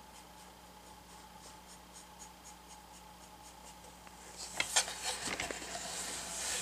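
Paintbrush dabbing paint onto a painted panel in light, quick strokes, about four a second. About four seconds in, the panel is lifted and handled, with louder clicks and rubbing.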